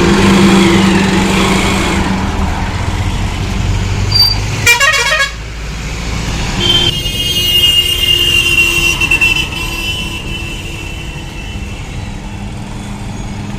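Honda Stunner's single-cylinder engine running on a test ride after an engine rebuild, with vehicle horns sounding partway through: a short burst about five seconds in and a longer steady horn tone from about seven to ten seconds in.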